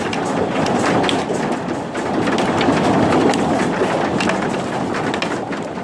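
Large hailstones pelting down in a heavy hailstorm: a dense, steady clatter with many sharp individual hits throughout.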